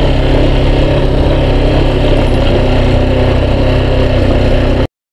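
Yamaha XTZ 250 Lander's single-cylinder four-stroke engine running steadily as the motorcycle rides along. The sound cuts off abruptly near the end.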